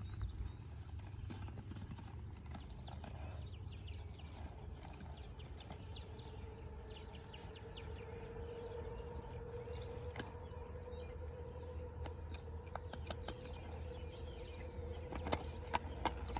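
A horse's hooves on an asphalt road: a few scattered knocks while it stands, then regular clip-clop near the end as it walks off, over a low steady rumble and a faint steady hum.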